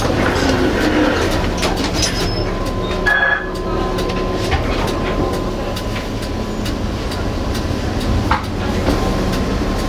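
Inside the driver's cab of a Tatra T4D tram in rain: a steady rumble with a faint constant hum and scattered clicks and knocks. A short high-pitched note sounds about three seconds in.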